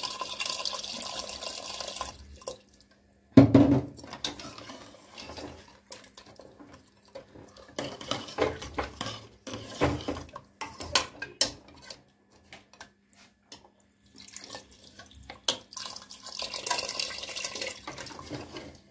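A stream of water pours into a pressure cooker of thick curry masala. Then a metal ladle knocks and scrapes against the cooker's metal sides as the masala is stirred into the water, with one loud knock about three and a half seconds in. Near the end, more water pours in.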